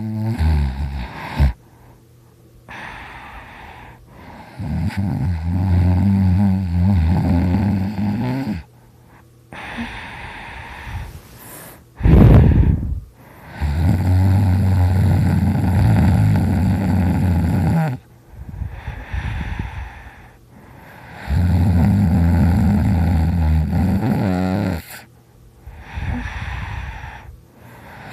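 A person snoring very loud: long, low snores of three to four seconds each, coming about every eight seconds, with quieter breaths in between. About twelve seconds in there is one short, louder burst.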